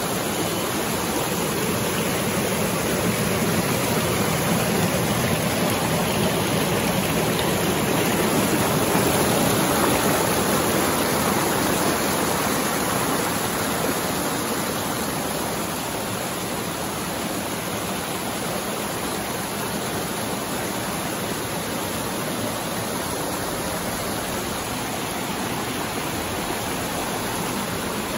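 Steady rushing of flowing river water, a little louder for a few seconds in the first half.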